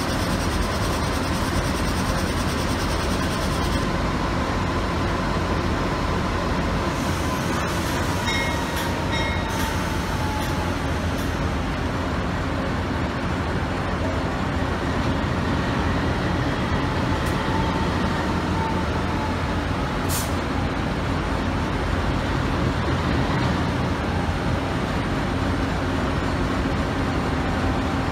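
NR class diesel-electric locomotive (GE Cv40-9i) running steadily while it creeps up to the carriages to couple, with a faint wavering whine over the engine and a few light clicks.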